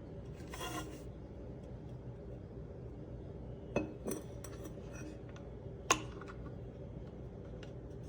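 Stainless steel water bottle and its plastic lid handled on a hard surface: a brief scrape under a second in, then three sharp clicks and clinks, two close together about four seconds in and the loudest about six seconds in.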